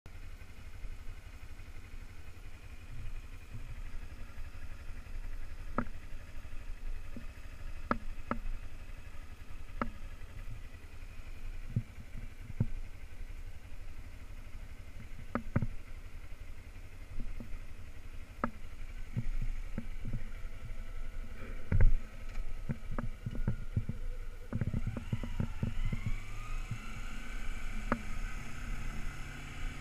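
Kawasaki Ninja 250R's parallel-twin engine idling, with scattered clicks and knocks and one louder knock a little past the middle. Near the end the engine revs up with rising pitch as the bike pulls away.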